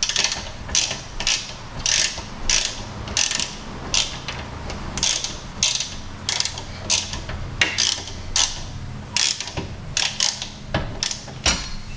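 Hand ratchet wrench clicking in short bursts, about two a second, on each return stroke as it backs out a rear suspension arm bolt.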